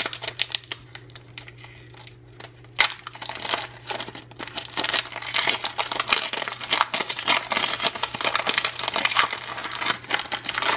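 Foil wrapper of a Pokémon TCG Cosmic Eclipse booster pack crinkling as it is handled and torn open by hand. The crackling is sparse at first and turns dense and louder from about the middle on.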